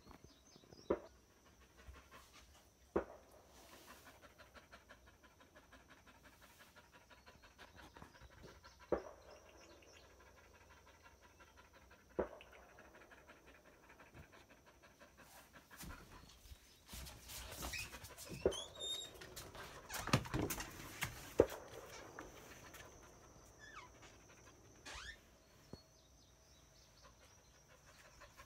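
Australian cattle dog panting in a quick, even rhythm, with a few sharp clicks scattered through. Partway through there is a louder stretch of rustling and knocks.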